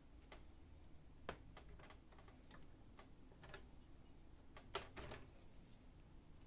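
Scattered light clicks and taps of laser printer parts being handled and taken off by hand. A sharper click comes about a second in, and a short cluster of clicks comes about five seconds in.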